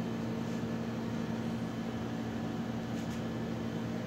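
A steady low machine hum with an even background hiss, holding constant.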